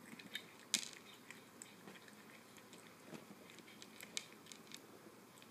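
A cat chewing dry kibble from a stainless steel bowl: irregular crunches and clicks, the sharpest about a second in.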